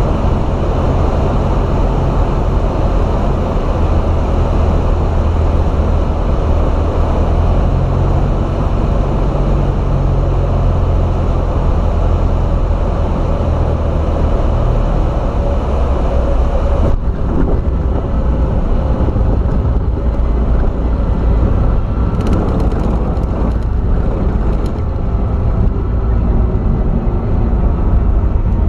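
Cockpit noise of a single-engine light plane rolling on the runway: a steady drone of its engine and propeller. About seventeen seconds in the high hiss drops away suddenly and a lower drone carries on.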